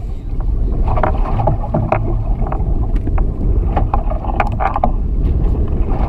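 Steady wind noise on the microphone and water moving against the hull of a small fishing boat at sea, with scattered light clicks and knocks.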